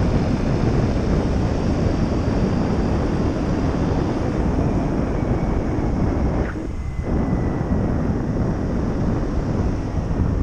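Wind buffeting a helmet-mounted camera's microphone while riding a bicycle, a heavy, continuous rumble mixed with road traffic noise, easing briefly about two-thirds of the way through.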